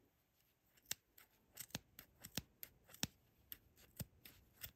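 Scissors snipping through the uncut yarn loops of a handmade pom-pom: a run of short, quiet snips starting about a second in, roughly three or four a second.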